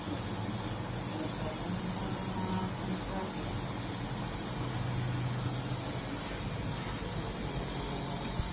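Steady hiss of a compressor nebulizer running as it mists medicine for a baby's cough and cold.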